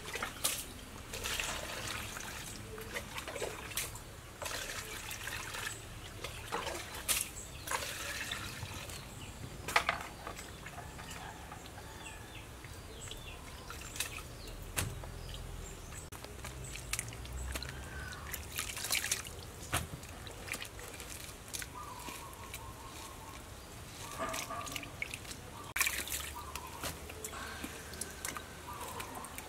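Water splashing and dripping as bunches of enoki mushrooms are washed by hand in a plastic bowl and lifted out, with scattered irregular splashes and taps from the handling.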